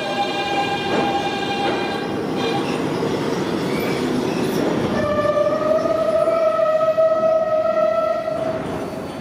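R160-series New York City subway train's electric traction motors whining as it slows into the station. A pitched whine fades out about two seconds in. A new whine starts about halfway through, rises slightly in pitch, and cuts off near the end as the train comes to a stop.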